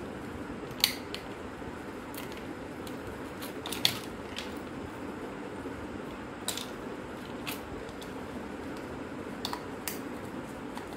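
Scattered sharp clicks and taps of an old compact film camera's plastic body parts and small tools being handled during disassembly, the loudest about one second and four seconds in, over a steady low background hum.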